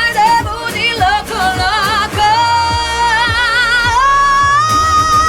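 Dance-pop song's closing vocal: a female voice sings quick ornamented runs over the beat, then a long held note that steps up in pitch about four seconds in and is held with vibrato.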